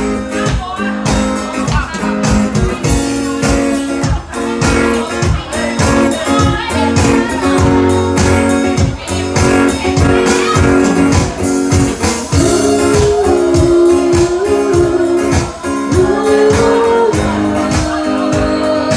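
Band music led by guitar with a steady beat; a lead melody line comes in about halfway through.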